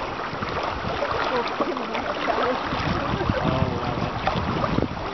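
Wind buffeting the microphone over water rushing and splashing past canoes moving fast under a makeshift tarp sail.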